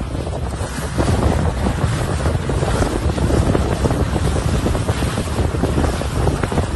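Wind buffeting the phone's microphone on a small boat, a steady rough rushing rumble with no clear engine note.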